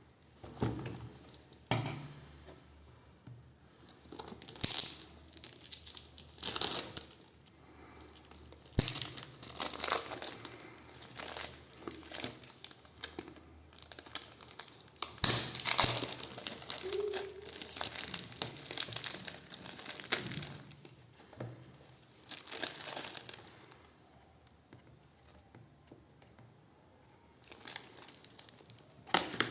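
Packaging being unwrapped by hand: irregular crinkling and rustling, with tearing and small handling clicks, in stop-start bursts with a quieter pause near the end.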